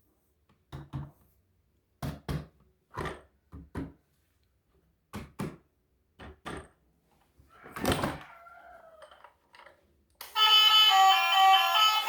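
A series of short knocks and thuds, most of them in quick pairs, with a louder rushing scrape about eight seconds in. Music starts about ten seconds in.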